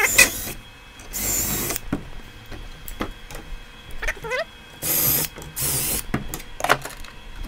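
Cordless drill boring handle holes through a wooden cabinet door through a drilling jig, in about four short bursts, with light clicks and knocks in between.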